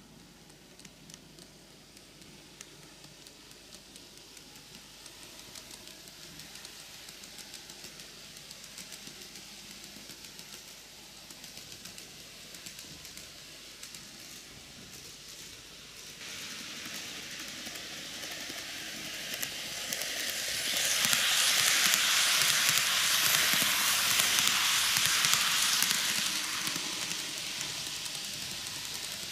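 TOMIX N-gauge model of the Kintetsu 80000 series Hinotori, a six-car set, running on its track: a steady rolling noise of its wheels and motor that slowly grows, is loudest for about five seconds two-thirds of the way through, then eases.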